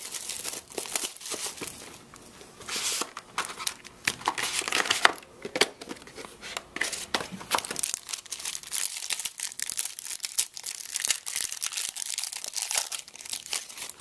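Packaging of a trading-card box being torn open and crinkled by hand: a dense run of crackling and tearing, with louder rips about three and five seconds in.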